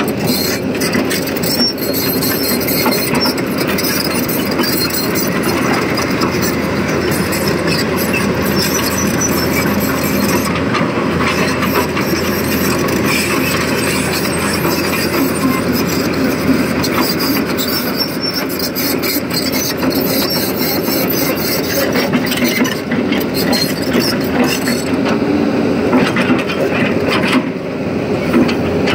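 Tata Hitachi ZAXIS 220LC crawler excavator working close up: steady diesel engine and hydraulic noise, with frequent metallic clanks and rattles.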